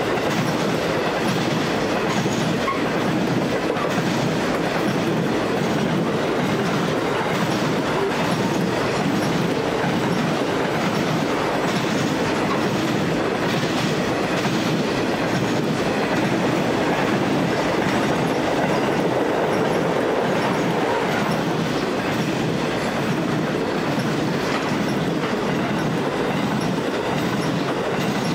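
Loaded grain hopper wagons of a long freight train rolling past: the steady, unbroken noise of steel wheels running on the rails.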